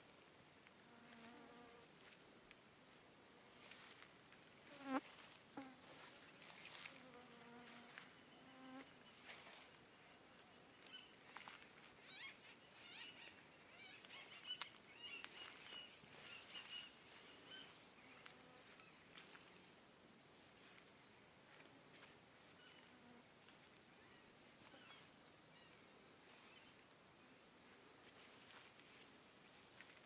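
Faint outdoor insect buzz, a steady high-pitched drone that runs throughout. Scattered short chirps come through in the middle, and a few low calls and small clicks sound in the first ten seconds.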